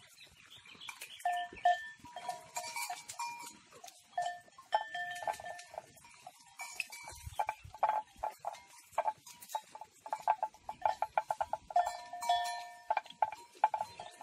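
Livestock bell clanking irregularly as the animal wearing it moves and feeds, with a quick run of clanks in the second half.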